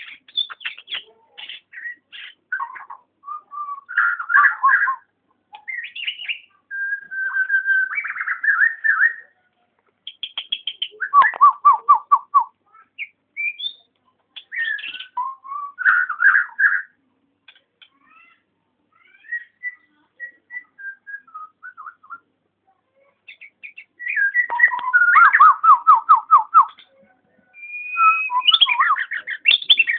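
Nias hill myna whistling and calling in varied phrases a few seconds long: clear whistled notes mixed with bursts of fast repeated notes. There is a quieter, sparser stretch in the middle.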